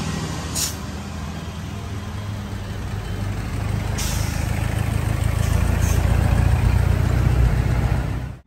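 Heavy road vehicle's engine running close by, getting louder in the second half, with two short air hisses, one about half a second in and one about four seconds in, typical of air brakes.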